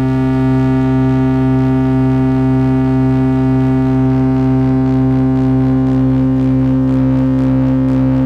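A steady, buzzy synthesizer drone on one held pitch, its audio run through Eurorack function-generator modules for a sound-quality test. Near the end, a slight wobble creeps into the upper tones.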